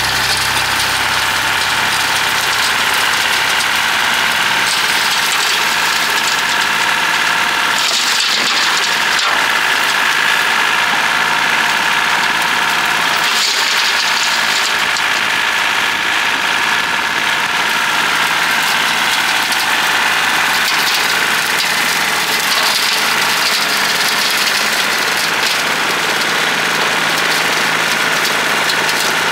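John Deere 790 compact tractor's three-cylinder diesel running steadily, driving a Bush Hog BH215 rotary cutter, with a steady whine over the engine. A brief rush of noise comes about 8 seconds in and again about 13 seconds in.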